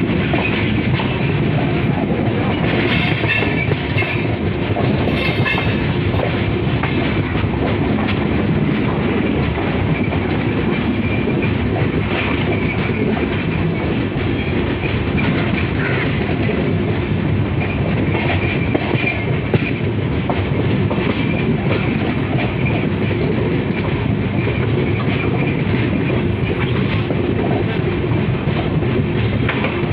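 Passenger train coach running along the track, heard from its open doorway: a steady rumble and clatter of wheels on rails.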